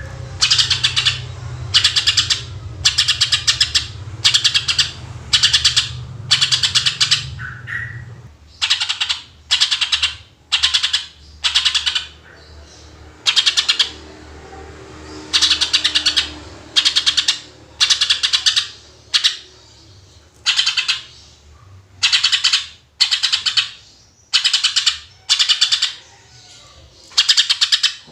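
Cucak ijo (greater green leafbird) singing its 'tembakan' shots: a long run of short, loud, high-pitched burst phrases, about one a second. A low rumble sits under the first third and stops suddenly.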